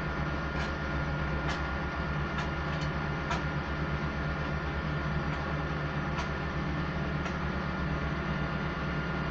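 Diesel road-paving machinery running steadily, with a fast low pulsing and a thin steady whine. Sharp clicks or knocks come about once a second, mostly in the first two thirds.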